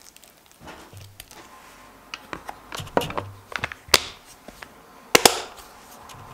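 A wooden spoon scraping a creamy spread into a glass container, then a plastic snap-lock lid pressed on and its latches clicking shut, with a run of sharp clicks and the loudest click about five seconds in.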